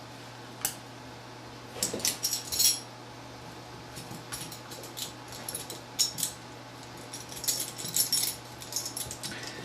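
Scattered small metallic clicks and taps of grip screws and a screwdriver being handled on a Sig P238 pistol while a wraparound grip is screwed on, over a steady low hum.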